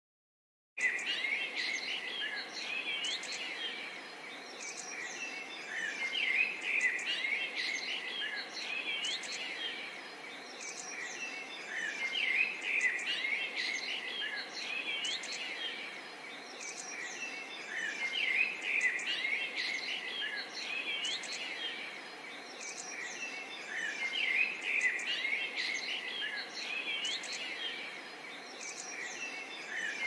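A chorus of songbirds chirping and trilling over a faint steady background hiss. It starts abruptly about a second in and swells and eases about every six seconds.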